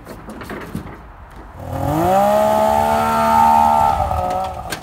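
Yamaha V-Max SX snowmobile's two-stroke engine revving up about one and a half seconds in as the sled is driven up a loading ramp. It holds high revs for about two seconds, then eases off and cuts out near the end.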